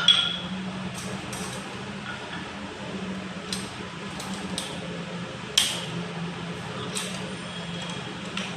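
Steel wire of a wire mesh cable tray being tapped with a hammer to curve it: scattered light metallic taps and clinks with a short ring, about one every second, the strongest near the start and halfway through, over a steady low hum.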